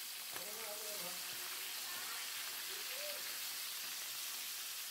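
Flour-dusted chicken pieces frying in oil in a wok, a steady sizzle. The skin has crisped on the underside and the pieces are about to be turned.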